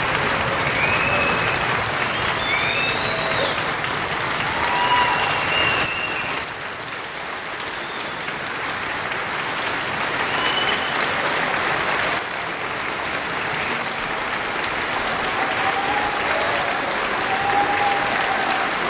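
Audience applauding, steady clapping with scattered high whoops over it.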